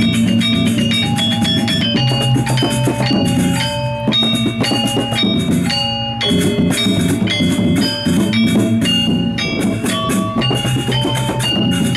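Balinese gamelan gong kebyar ensemble playing: bronze metallophones ring out a fast, stepping melody over a hand-played kendang drum, with a couple of brief breaks in the texture.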